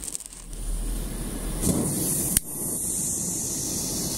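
A homemade spolette, a paper time-fuse tube rammed with fuse composition, is lit with a lighter. It catches about a second and a half in and burns with a steady hissing spray of sparks, with a sharp pop a little after it catches. This is a timing test burn of about 2 cm of composition.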